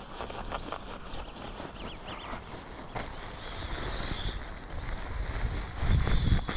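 Rustling and crinkling of an inflatable sleeping mat being deflated and rolled up by hand, with scattered small clicks and a loud low thump of handling near the end.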